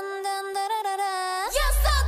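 Edit background music: the beat and bass drop out, leaving a single held note, then a rising sweep as heavy bass kicks back in near the end, leading into a dubstep-style drop.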